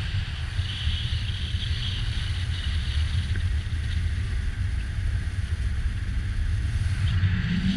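Steady wind buffeting on the camera microphone from the airflow of a tandem paraglider in flight, a low rumble with a hiss over it.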